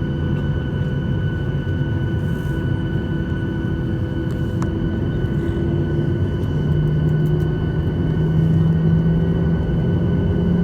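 Boeing 737-800's CFM56 jet engines running, heard inside the passenger cabin: a steady rumble with constant whine tones. About six seconds in, a low hum rises slightly in pitch and the sound grows a little louder.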